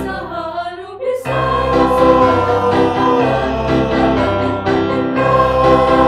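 Background music with sung, choir-like voices over a pulsing accompaniment. It thins to a single wavering line for about a second at the start, then the full music comes back in.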